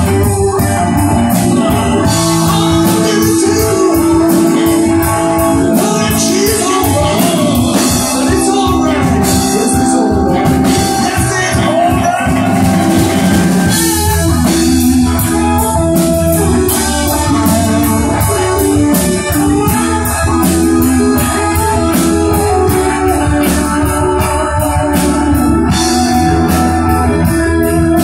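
Live rock band playing loudly: electric guitars and bass over a drum kit keeping a steady beat.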